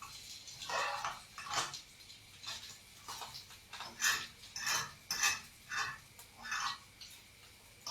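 A utensil scraping and clinking against kitchen dishware in a series of quick strokes, about two a second.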